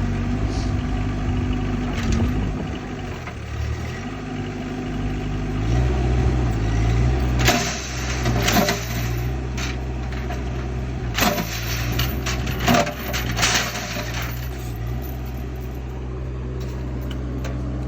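Cat excavator's diesel engine running and revving up about six seconds in as it pulls on a chained gate, with a series of sharp clanks and cracks over the next several seconds.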